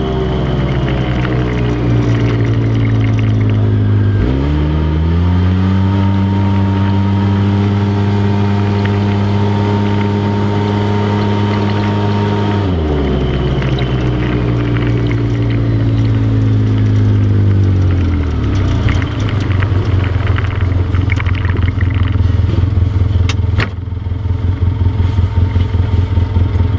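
ATV engine winding down, then revving up about four seconds in and holding a steady pitch under load. Around thirteen seconds in it winds down again, settling into an uneven low-rpm putter from about eighteen seconds.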